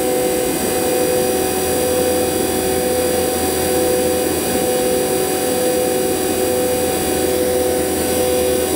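Fieldpiece VP85 DC-motor vacuum pump running steadily while its oil is drained on the fly under vacuum: a steady whine of several tones over a rushing hiss.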